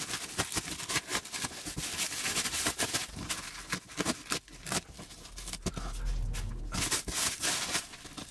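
Black plastic wrapping being torn and pulled off a taped cardboard box by hand: irregular crinkling and crackling of the plastic film, with sharper rips.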